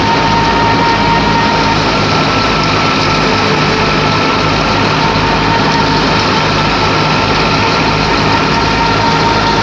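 New Holland Fiat 480 tractor's three-cylinder diesel running steadily at about 1700 rpm, driving a thresher off the PTO: a loud, even drone with a constant whine over it.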